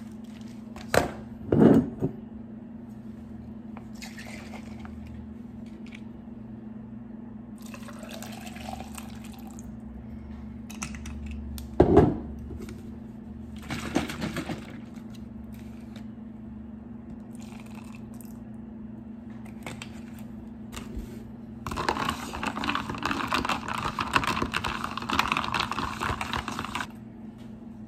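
Iced coffee being made in a plastic cup: a few knocks and clatters of things set down on the counter, cold brew coffee poured into the cup about eight seconds in with a rising filling tone, then a long stretch of stirring with a plastic straw near the end. A steady low hum runs underneath.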